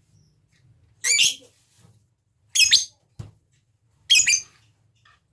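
Lovebird giving three short, shrill calls about a second and a half apart, the calling sound used in masteran recordings to set other lovebirds chattering. A single sharp click falls between the second and third calls, over a faint low hum.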